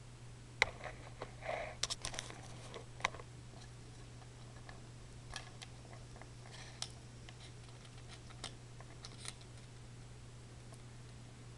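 Scattered light clicks and a brief rustle as small plastic plugs and wire leads are handled, busiest in the first three seconds and sparser after, over a steady low hum.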